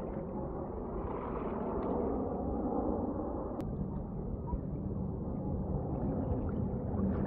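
Distant jet noise from a formation of eight Dassault/Dornier Alpha Jets passing overhead: a steady low rumble, with a single sharp click about three and a half seconds in.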